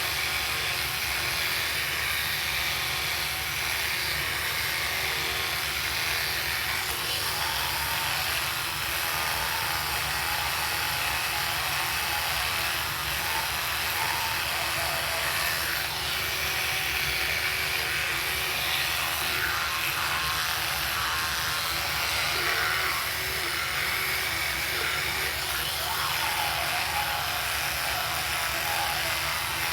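Oral-B Smart 5000 rechargeable electric toothbrush running with a steady buzz.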